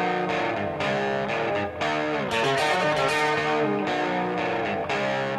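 Background music led by guitar, with changing sustained notes.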